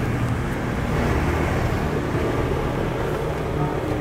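Steady roadside traffic noise, a continuous low rumble of passing vehicles.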